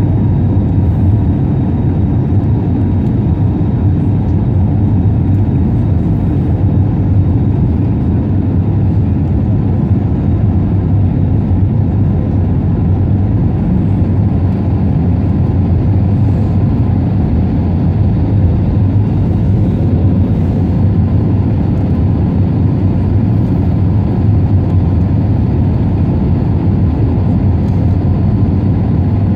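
Steady cabin roar of an Airbus A320neo in its climb after takeoff: its Pratt & Whitney PW1100G geared turbofans and the rush of air along the fuselage, heard from a seat over the wing. The noise is mostly low and even, with a faint steady hum on top.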